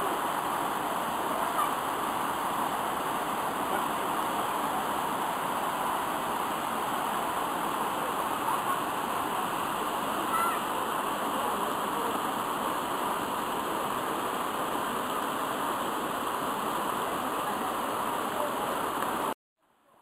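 Mountain stream water cascading over low rock ledges into a pool: a steady rushing of water that cuts off abruptly near the end.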